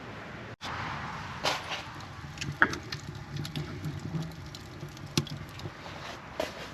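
A few sharp knocks and clicks from objects being handled, the loudest about two and a half seconds in, over a steady hiss.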